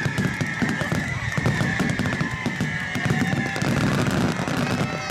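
Aerial firework shells bursting overhead: low booms and a dense, continuous crackle of many sharp pops. A steady high-pitched tone holds underneath.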